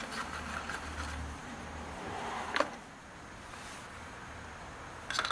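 Quiet handling of small engine parts, the new oil filter and its cover, with one sharp click about two and a half seconds in, over a low hum.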